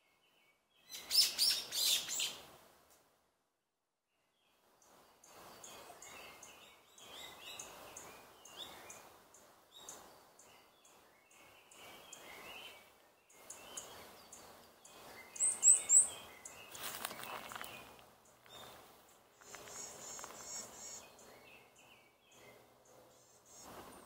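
Forest birds singing and calling, mostly high chirps over a soft woodland background. A loud cluster of calls comes about a second in, and three quick rising chirps come past the middle. The sound drops out to silence and comes back several times.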